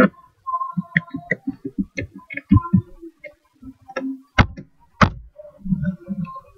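Computer keyboard keys typed in a quick run of short thumps and clicks as a password is entered, then two sharp clicks a little past the middle.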